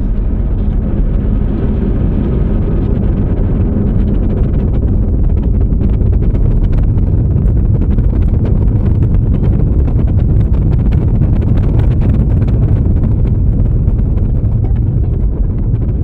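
Airbus A330 cabin noise during the landing rollout: a loud, steady low rumble from the landing gear rolling on the runway and the engines, with the higher hiss easing off after a few seconds. Light rattling clicks run through the middle.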